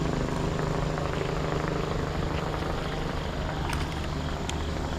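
Steady low drone of an engine with an even pitch, with short high chirps repeating about twice a second near the end.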